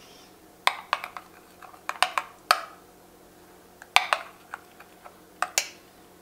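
Metal spoon clinking against a glass bowl while scooping out a creamy sauce, in a run of sharp clinks grouped in clusters.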